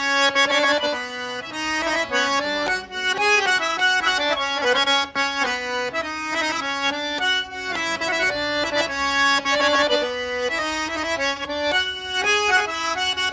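Piano accordion playing a melody of quickly changing notes over a sustained lower chord.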